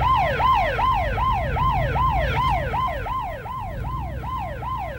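Ambulance siren on a fast yelp: about two and a half rising-and-falling wails a second, over a low rumble, growing fainter toward the end as the ambulance pulls away.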